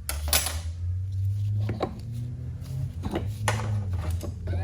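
Metal transfer case parts clinking and knocking as they are handled and taken apart on a workbench, several separate clinks over a steady low hum.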